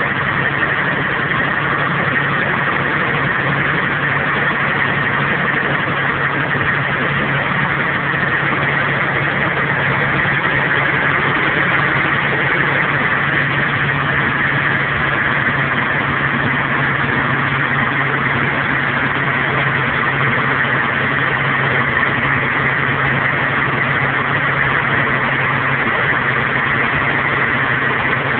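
Dodge Stealth twin-turbo 3.0 L V6 idling steadily. The owner suspects a spun bearing, with low oil pressure, and the bearings were in fact worn.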